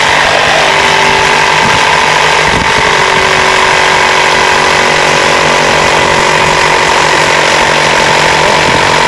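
Small portable electric air compressor running steadily, pumping air through a hose into a 2-liter water-rocket bottle to pressurize it for launch.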